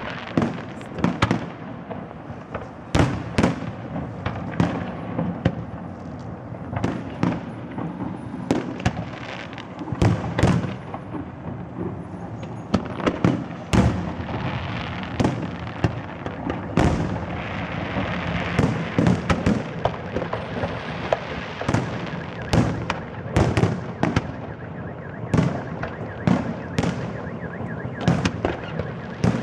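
Fireworks display: a continuous barrage of shells bursting with sharp bangs, often several in quick succession, over steady crackling.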